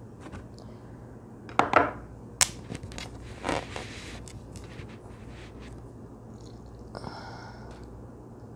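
A glass salad bowl and a plate are handled and slid on a stone countertop, with a few sharp clicks and brief rustles of lettuce in the first few seconds. About seven seconds in, a squeeze bottle of ranch dressing is squeezed, giving a short hiss as the dressing squirts out.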